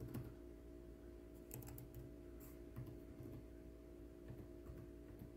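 Faint, scattered taps and clicks on a laptop keyboard while software is started, over a steady low electrical hum.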